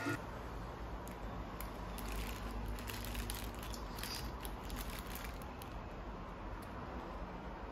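Paper burger wrapper rustling and crinkling in the hands, in scattered short crackles that thin out after about five seconds, over a steady low hum.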